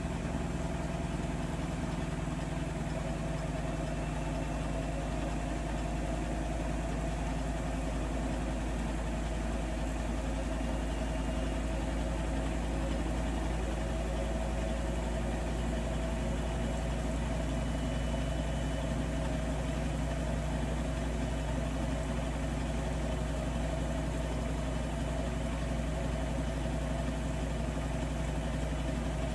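Bosch Serie 4 WAK20260TR washing machine running with a steady, continuous hum that holds at an even level throughout.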